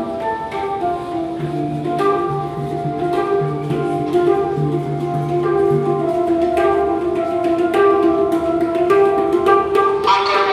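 Music: a melody of held notes over a low sustained note, with light percussion.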